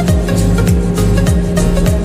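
Background music with a steady electronic beat: a kick drum about every 0.6 seconds, with crisp percussion ticking between the kicks.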